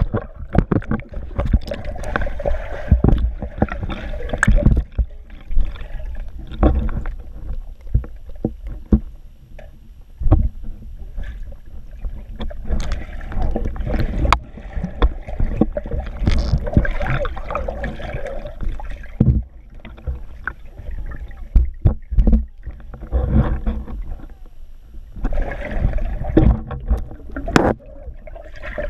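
Muffled underwater pool noise picked up by a submerged GoPro camera: churning water and bubbling with irregular knocks and thumps.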